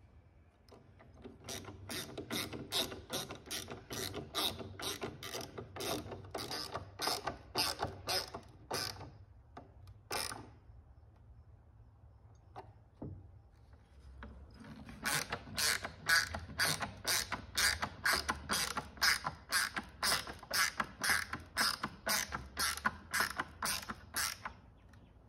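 Hand screwdriver driving #8 bronze screws into cedar sole slats: a steady run of sharp clicks, about two or three a second, in two long runs with a pause between.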